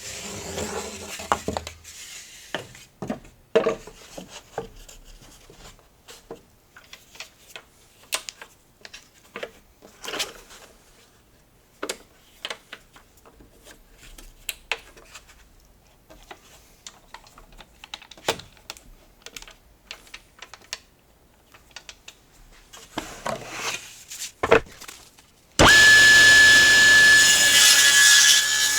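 Scattered light clicks and knocks of wood and fixtures being handled and adjusted, then, about 26 seconds in, a table saw switched on and running loudly and steadily with a high whine.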